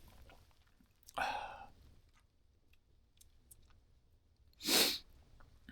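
Small crackling clicks from a campfire, with two short breathy sounds from a person, a little over a second in and again near the end, the second the louder.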